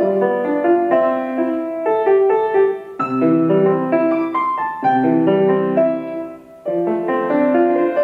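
Solo piano playing a piece in repeated phrases of chords and melody. It eases off briefly about six and a half seconds in, then comes back in with a loud chord.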